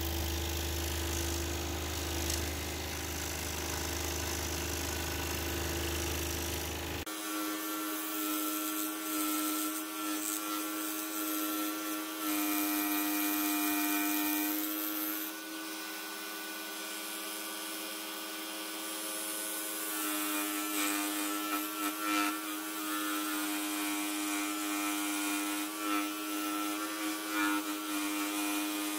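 Pégas 21-inch scroll saw running steadily, its fine fretsaw blade cutting through a thin wooden tree slice. There is a steady hum with overtones, and its tone changes abruptly about seven seconds in.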